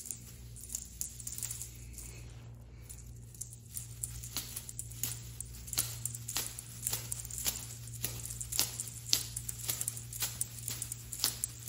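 Light sharp clicks, about two a second, of a tinsel cat wand toy tapping on a hard tiled floor, becoming regular after a few seconds, over a low steady hum.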